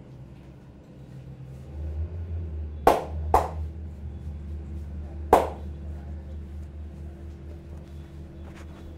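Three sharp hand slaps of a massage: two about half a second apart, then a third two seconds later, over a steady low hum.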